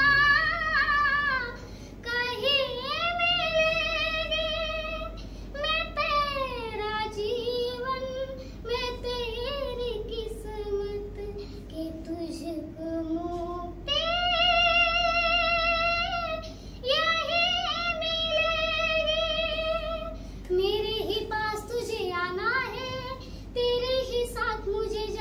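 A young girl singing a song unaccompanied, in long held phrases with vibrato and short breaths between them.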